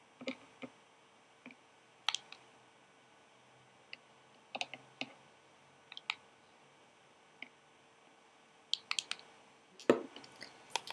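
Light, irregular clicks and taps against a thin plastic gummy-insect mold as gelatin solution is painted into its grooves, with a quick cluster of clicks near the end.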